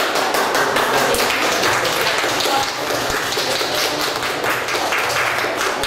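A small group of children applauding, a dense patter of many hand claps.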